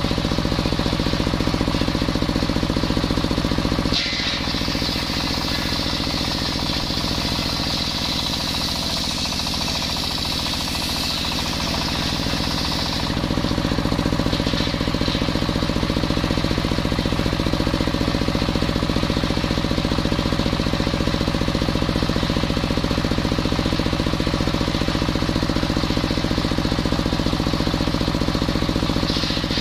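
Engine-driven circular sawmill running steadily, its engine a fast, even pulsing drone. From about four seconds in to about thirteen seconds in, the big blade cutting through waru wood adds a high-pitched sawing sound over the engine, and the cut starts again at the very end.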